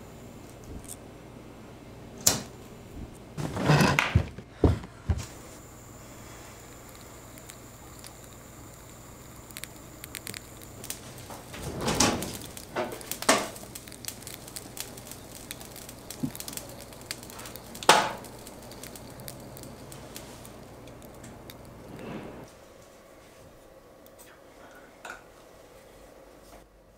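Scattered knocks and clatter of household objects in a small room, loudest in short clusters, over a low steady hum that stops about three-quarters of the way through.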